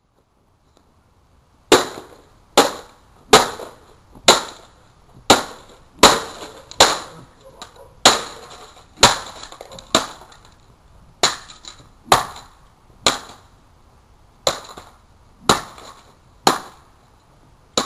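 A printer being smashed by repeated blows from a wooden stick and other blunt objects. About seventeen sharp cracking hits come roughly one a second, starting a couple of seconds in, with plastic and metal parts clattering.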